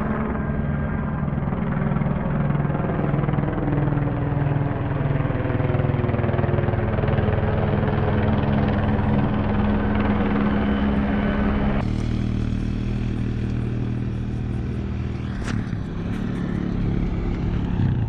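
Rescue helicopter circling overhead: a steady engine and rotor drone with a regular low beat, shifting slowly in pitch as it moves. The sound changes abruptly about twelve seconds in.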